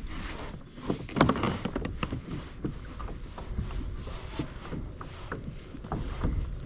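Handling noise on a fishing kayak: scattered light knocks and clicks of tackle and hull, with a louder clatter about a second in.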